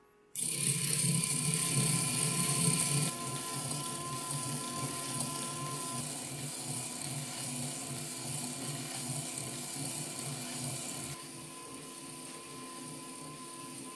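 Motor-driven 1:6 scale five-cylinder metal radial engine model running, its gears, pushrods and rocker arms making a steady whirring clatter with a fast rhythm. It starts suddenly, and gets quieter about three seconds in and again near the end. This is the running noise that is hard to avoid in such articulated models.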